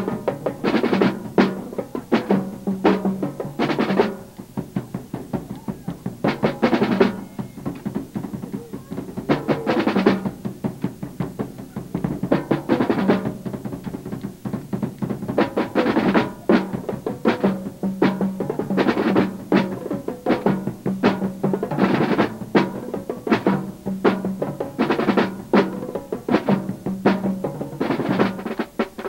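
Marching drumline playing a fast, dense cadence on snare drums, tri-toms and bass drum, with rapid rolls and repeated accented strikes.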